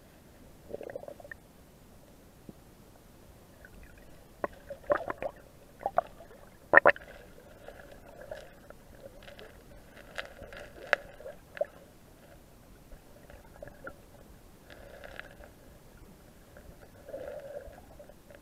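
Muffled underwater sound picked up by a camera held under water in a river: low gurgles and bubbly swells with a scattered run of sharp clicks and knocks, the loudest about seven seconds in.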